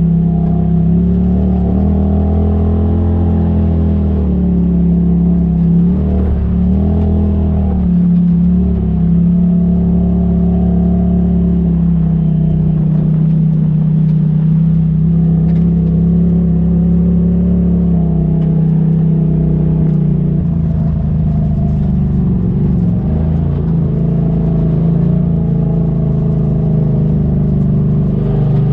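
Polaris RZR side-by-side's engine running steadily at low trail speed, heard from inside the cab, its pitch dipping and rising a little as the throttle changes.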